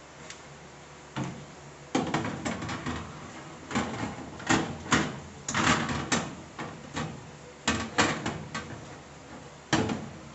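A metal baking tray being handled and slid on the rails inside a new gas range's oven: a series of irregular knocks, clatters and scrapes.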